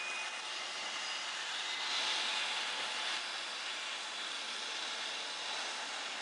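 Steady hiss of shipyard machinery and metalwork, swelling slightly about two seconds in.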